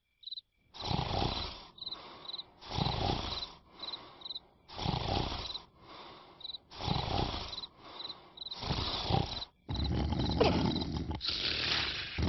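Cartoon night-time sound effects: a cricket chirping in short high chirps, broken about every two seconds by a loud rasping snore. From about ten seconds in the rasping runs almost without a break.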